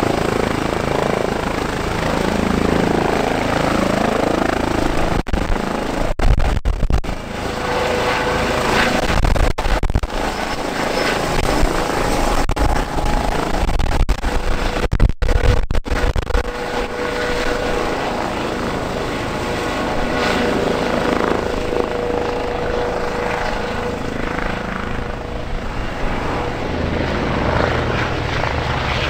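Airbus Helicopters H135 air ambulance running, rotor and Fenestron tail rotor at flight power, as it lifts off, hovers low and flies away. A few brief bursts of low rumble come in the first half.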